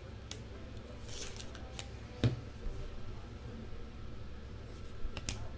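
Trading cards being handled by hand: a few light clicks and short rustles of card stock, with one sharper tap a little over two seconds in, over a low steady hum.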